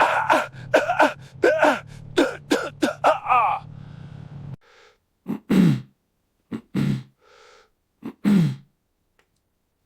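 A person coughing: a fast run of about nine short coughs over a low steady hum, which cuts off after about four and a half seconds, then a few separate coughs with gaps between them.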